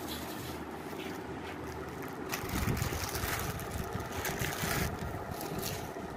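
Plastic wrapping rustling and crinkling as a packet of lace is handled and opened, busiest between about two and five seconds in, over a low rumble.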